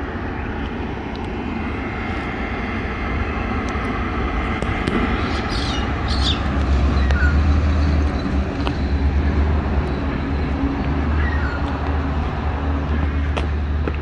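A low engine rumble that grows louder about five seconds in and eases off a little after eight seconds, with a few faint bird chirps over it.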